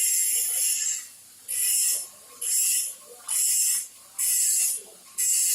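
Welding arc hissing and crackling in short, repeated bursts: one longer run, then about five half-second bursts roughly once a second, as the arc is struck and broken over and over.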